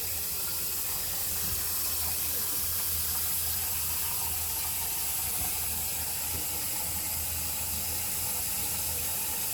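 RV faucet running steadily with hot and cold both open full blast, a constant even hiss of water.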